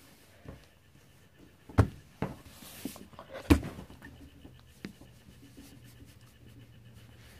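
Handling noise from a person leaning over the recording device: a few knocks and rubs, the two loudest about two seconds and three and a half seconds in, over a faint low hum.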